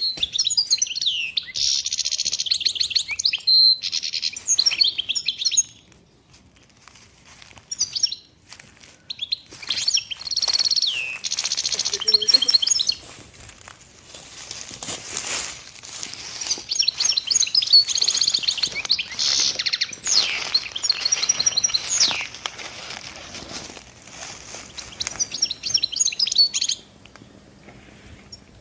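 A songbird singing loudly and close, in bouts of rapid chirps and trills with short pauses between phrases.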